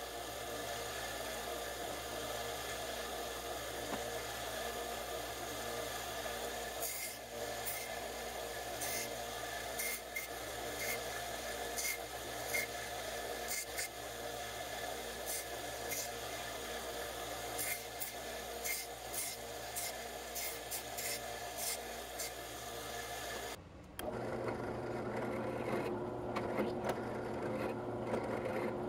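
Small bench belt sander running steadily while 3D-printed TPU parts are pressed against the belt, with irregular scratchy rasps as each part touches the belt. About 24 seconds in, it cuts to a benchtop drill press running.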